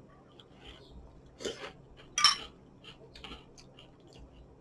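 Metal spoon clinking against a cereal bowl: a few short, separate knocks, the loudest about two seconds in.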